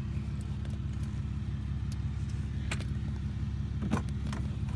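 Steady low hum, with a few light clicks and taps about three and four seconds in as the glove box is refitted.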